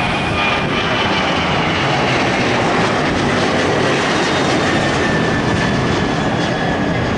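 Boeing 737 jet airliner climbing out after takeoff, its engines at high power: a loud, steady roar with a thin high whine that slowly falls in pitch as it passes.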